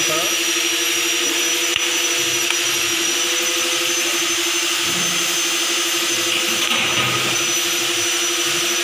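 Hammer-mill chopper and flour grinder running steadily, milling material into fine powder: an even, unbroken machine noise with a constant hum.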